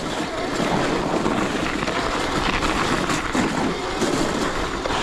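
Wind rushing over the microphone and tyre and chassis rumble from a 72-volt electric Razor dirt bike riding over a rough, icy road; the result is a steady, even noise.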